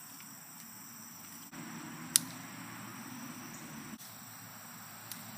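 Quiet outdoor background with a faint low hum, broken by one sharp click about two seconds in and a much fainter click near the end.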